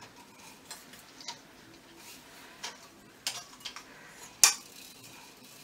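Metal parts of a coat rack clinking and knocking as its hooked top section is handled and taken apart: scattered light clicks and clinks, with one sharper clank about four and a half seconds in.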